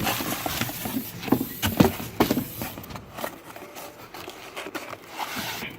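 New brake calipers being taken out of their packaging: irregular knocks and clicks of parts and box, with rustling in between, busiest in the first couple of seconds.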